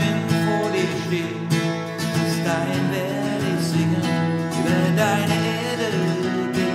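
Acoustic guitar accompanying voices singing a German worship song.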